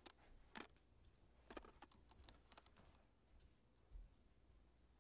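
Near silence in a small room, broken by a few faint, short clicks in the first three seconds and a soft low thump about four seconds in.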